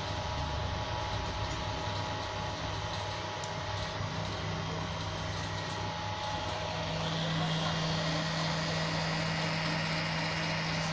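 Kingroon desktop 3D printer running: a steady mechanical hum with several held tones from its stepper motors and cooling fans. About seven seconds in, the tones shift and a higher whine joins.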